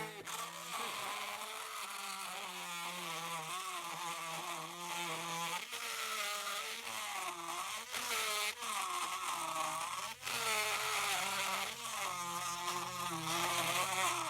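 Drill Master 12-volt rotary tool running a bit through material, a thin buzzing motor whine that keeps wavering in pitch as the motor slows under load and picks up again.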